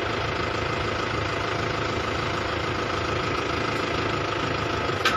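Tractor engine running steadily at idle, with a single short sharp click just before the end.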